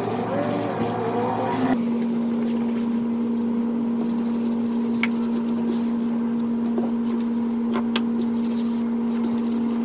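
A steady mechanical hum, one unchanging pitch, sets in abruptly about two seconds in, with a few light clicks over it.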